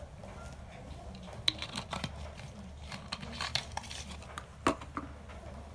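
A spoon clinking against a drinking glass several times at irregular intervals while stirring a glass of Milo, over a low steady hum.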